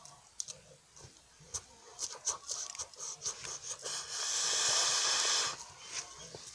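Small crunching clicks of crisp French Pie pastry being eaten close to the microphone. About four seconds in, a steady hiss lasting about a second and a half is the loudest sound.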